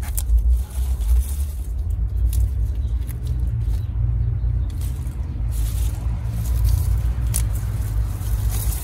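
A steady low rumble with leaves rustling and short crisp clicks as young salad greens are picked by gloved hands into a plastic basket.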